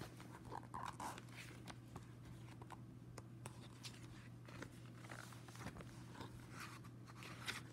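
Pages of a paperback graphic novel being flipped and riffled by hand: faint, irregular paper rustles and soft flicks, over a low steady hum.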